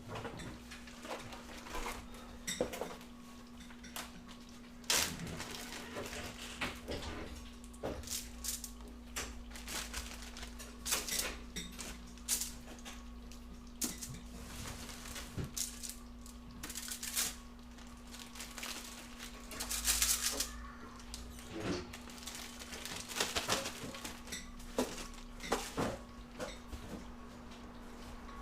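Intermittent clinks, knocks and rattles of dishes, containers and utensils being handled, over a steady low hum.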